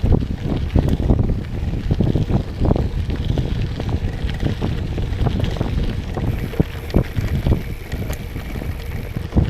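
Wind buffeting an action camera's microphone while a gravel bike with 38 mm tyres rolls over rough ground, a steady low rumble broken by frequent knocks and rattles from bumps.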